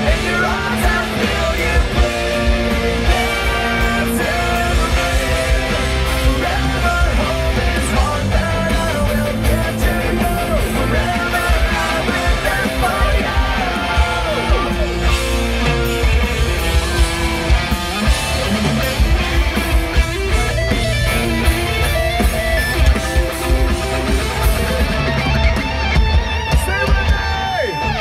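A live rock band playing loud: electric guitars, bass and drums, with singing at times. It is heard from within the crowd, with a heavy, boomy low end.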